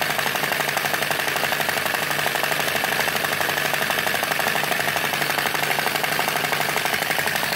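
Model flame-flicker Stirling engine running at high speed after being throttled up: a fast, even, steady mechanical clatter of rapid ticks.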